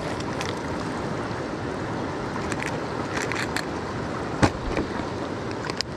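Steady rush of river rapids, with a few faint clicks and one sharp knock about four and a half seconds in.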